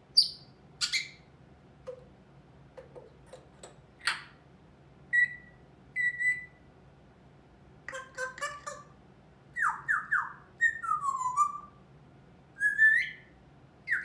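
African grey parrot vocalizing on its own: a string of sharp clicks and short whistles. Near the middle come several quick falling whistles, and near the end a rising whistle.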